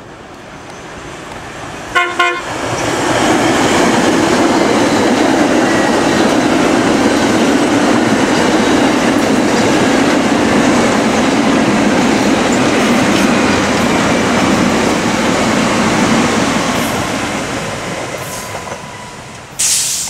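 Metro-North electric commuter train passing close by: a short horn toot about two seconds in, then the steady rush of the train running past on the rails, which builds, holds and fades away. A brief loud burst of noise comes just before the end.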